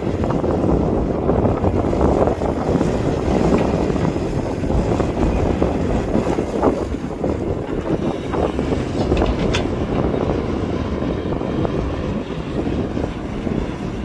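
Heavy diesel earthmoving machinery running with a steady rumble, wind buffeting the microphone.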